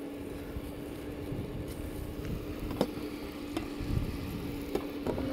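Electric air fryer running with a steady hum, with a few light clicks and knocks of handling; the hum stops near the end.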